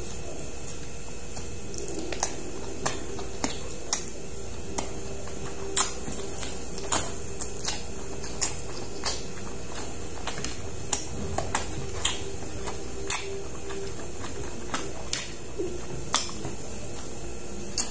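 Close-up mouth sounds of a person chewing braised octopus: irregular sharp, wet clicks and smacks, roughly one a second, over a steady background hum.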